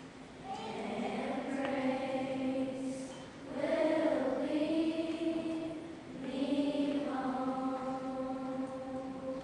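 A large school chorus singing sustained notes in three phrases, the last a long held chord.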